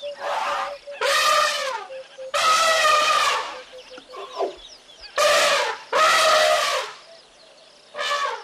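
A farm animal calling repeatedly: about six drawn-out calls of up to a second each, with faint chirping between them.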